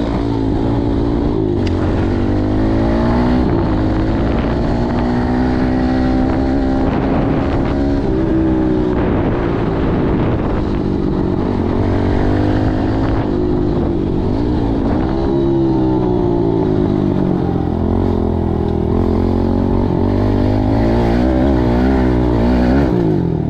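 Kawasaki dirt bike engine, heard close up from the rider's camera, revving up and easing off again and again as the bike is ridden through the gears.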